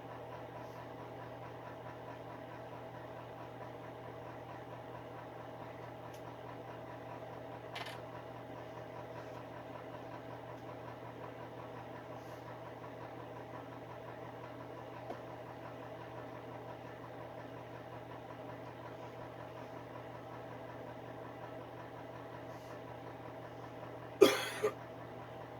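Electric space heater's fan running with a steady hum. Near the end, a sharp knock, followed by a smaller one half a second later.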